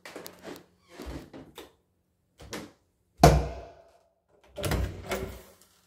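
Interior doors being opened by hand: a sharp bang about three seconds in, then a second, rougher clatter of a door about a second and a half later, with light clicks and rustle before them.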